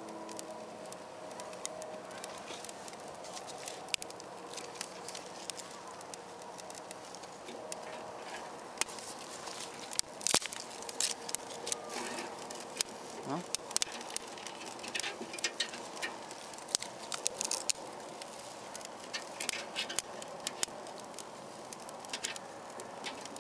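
Wood fire of small sticks crackling and popping inside a homemade ammo-can wood-burning stove. The crackles grow thicker and louder from about ten seconds in.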